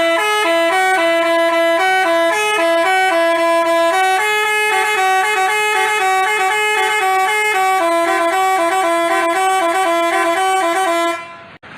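Bus telolet basuri horn playing a quick tune of stepped, held notes, then cutting off abruptly near the end.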